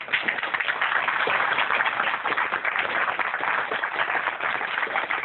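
Audience applauding. The clapping starts suddenly and stays steady.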